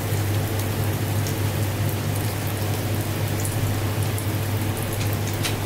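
Sticky-rice pancake batter frying in oil in a nonstick pan: a steady sizzling hiss over a low hum, with a few light clicks near the end.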